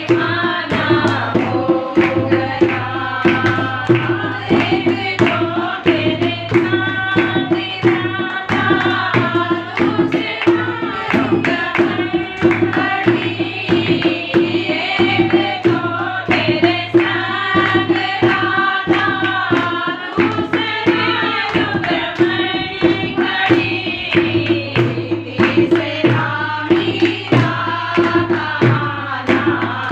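Group of women singing a Hindu devotional bhajan together, with steady hand clapping and a dholak barrel drum keeping the beat.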